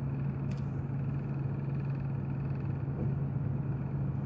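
Steady car engine and road noise heard from inside a moving car's cabin: a constant low hum under an even rush of noise, with a light click about half a second in.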